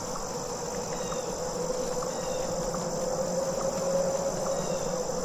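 Steady high-pitched insect trilling of a summer forest, with a steady low hum beneath it.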